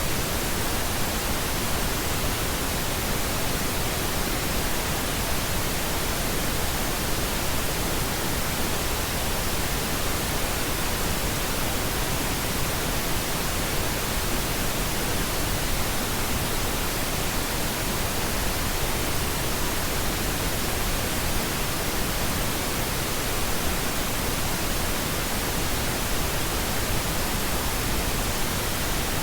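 Steady, unbroken pink noise: an even hiss spread over all pitches.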